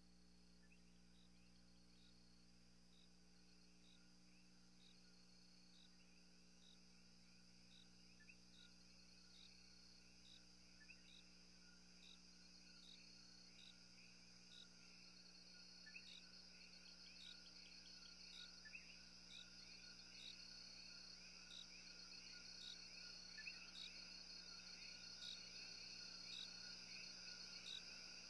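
Faint night chorus of coquí tree frogs and insects: many overlapping short rising chirps, a steady high trill, and one regular high chirp repeating about every two-thirds of a second, slowly growing louder.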